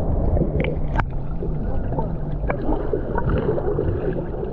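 Sea water sloshing and gurgling around a camera held in the water, with a few short clicks.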